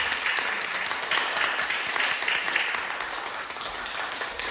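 Applause from a small audience, many hand claps going steadily.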